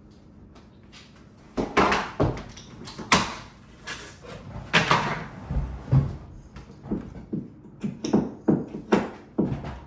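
Irregular knocks, bangs and scrapes of old flooring being torn up and handled, starting about a second and a half in.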